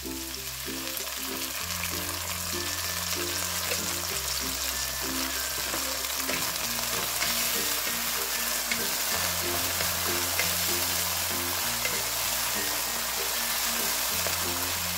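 Garlic, onion and ginger sizzling in hot oil in a wok as oyster sauce is added, stirred with a wooden spatula. Background music with low notes plays underneath.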